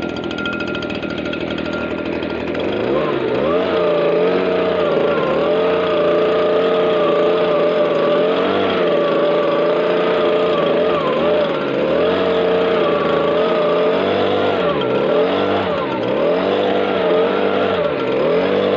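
Stihl BG56 leaf blower's small two-stroke engine running. It picks up speed about three seconds in and holds a high, wavering pitch, then is revved up and down repeatedly, about once a second, near the end.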